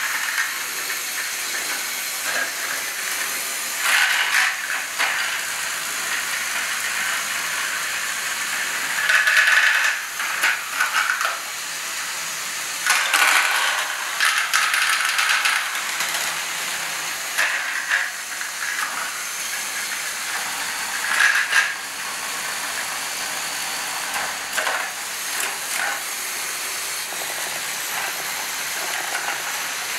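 LEGO Great Ball Contraption machinery running: a steady whirr of small plastic gears and mechanisms, broken every few seconds by louder bursts of clatter as plastic balls tumble through the modules.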